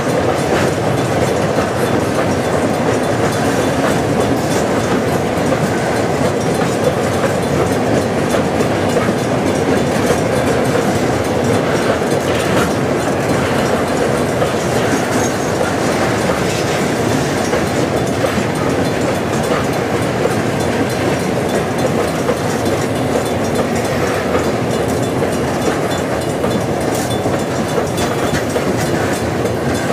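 Loaded iron-ore hopper cars of a freight train rolling past, steel wheels on rail making a steady rumble with light clicking. The sound eases slightly near the end as the last cars go by.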